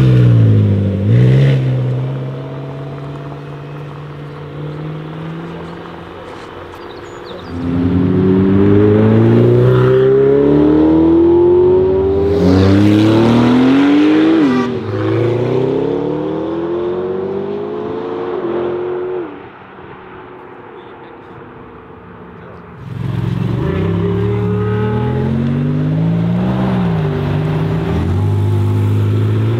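Supercar engines revving and accelerating hard, one car after another: a McLaren GT's twin-turbo V8 blips at the start, then two full-throttle pulls follow, each climbing in pitch and dropping back at every upshift. A quieter stretch lies between the two pulls.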